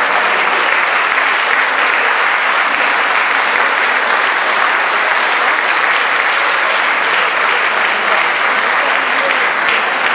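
Large audience applauding steadily, a dense sustained clapping.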